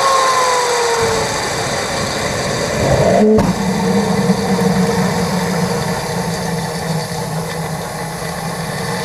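Saphir 5 APU gas turbine spooling down after a flameout, its whine falling in pitch over the first second. After a short break about three seconds in, a steady low hum with a higher whine above it, the turbine turning over again.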